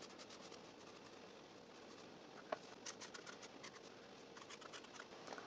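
Faint scratching and ticking of hands and a pen on notebook paper: eraser shavings being pushed into letters and a pen writing, in short clusters of small ticks, with one light tap about halfway through.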